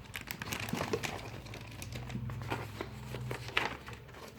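Paper and plastic packaging rustling and crinkling as it is handled, a string of small irregular crackles with a sharper one about three and a half seconds in.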